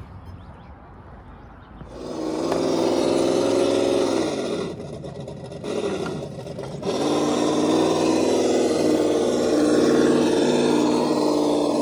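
Scale RC rock crawler truck climbing rock, its motor and drivetrain running with a steady pitched hum that starts about two seconds in. Around the middle the pitch sinks and the hum fades as the truck eases off, then it rises again as the truck drives on.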